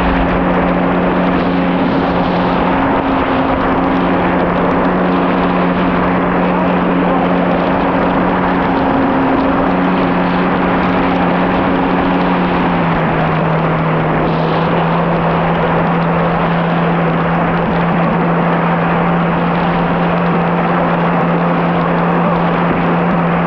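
Kawasaki SX-R 1500 stand-up jet ski running at speed, a steady engine note under a loud rush of wind and water spray. The engine pitch drops slightly about halfway through, then holds.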